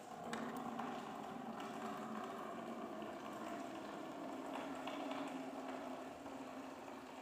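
Steady mechanical hum with a few faint ticks from metal knitting needles.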